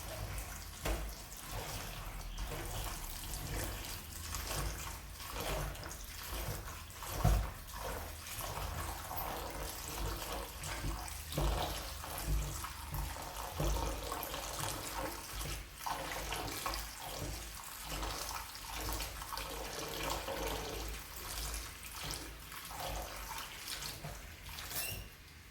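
Tap water running into a sink while chopped callaloo leaves are washed by hand, with irregular splashing and sloshing throughout.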